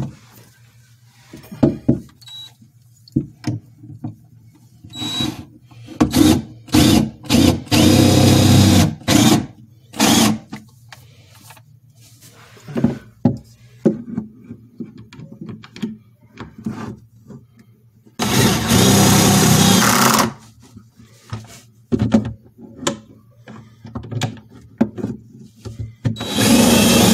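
Cordless drill driving screws into a wooden bed frame: a string of short trigger bursts, then two steady runs of about two seconds each, the second near the end.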